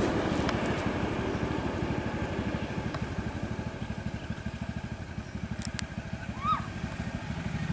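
Three-wheeler auto-rickshaw's small engine idling with a fast, even putter. A little past five and a half seconds in there are two sharp clicks, then a short high whistle-like cry rising and falling.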